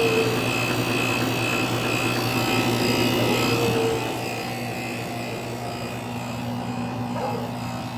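Rheem Classic central air conditioner condensing units running: a steady compressor hum under the rush of the condenser fans, dropping a little in level about four seconds in.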